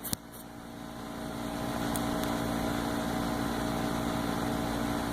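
Steady mechanical hum with a low, even drone, growing louder over the first second and then holding level; a small click right at the start.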